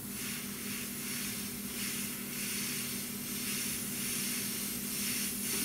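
Airbrush spraying primer in a steady hiss onto a small plastic model part, the canopy slide, with a low steady hum underneath.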